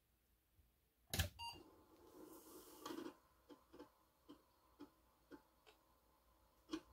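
Apple IIe booting a floppy diskette: a sharp click and the computer's short beep about a second in, then the floppy drive running with a faint hum and clicking about twice a second as it reads the disk.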